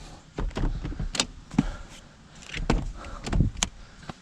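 BMW front seat being moved forward along its floor rails: a run of irregular clicks, knocks and clunks from the seat mechanism and frame.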